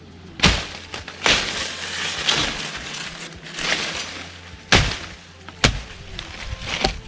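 A tree limb being chopped: a few sharp chops of a blade into wood, with a longer rustle and crackle of leafy branches between them.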